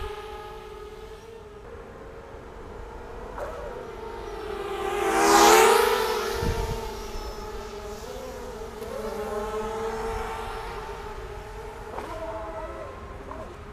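Motors and propellers of a ZMR250 mini H-frame FPV racing quadcopter, buzzing steadily in flight. The buzz swells to a loud close pass about five seconds in, its pitch dipping and rising again. Near the end the pitch wavers as the throttle changes.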